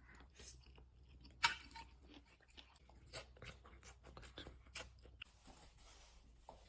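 Faint eating sounds at a meal: scattered small clicks, taps and chewing, with one sharper click about one and a half seconds in and another near five seconds.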